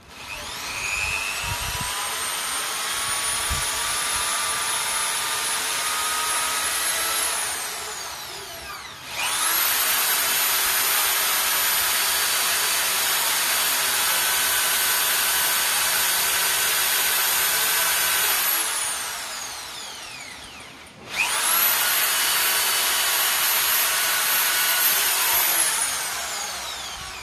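Corded electric drill running in three long runs against a coconut. Each run spins up with a rising whine and winds down with a falling one, with short pauses between.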